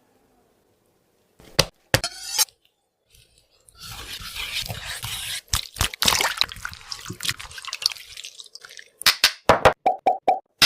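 Cooking ASMR food-preparation sounds: a couple of sharp knocks, a stretch of rubbing or mixing noise with scattered clicks, then a quick run of sharp taps near the end.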